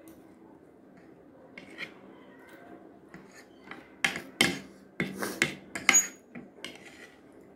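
Metal spoon and fork scraping and clinking against a plate while gathering noodles: a few faint clicks at first, then a quick run of loud, sharp scrapes from about four seconds in.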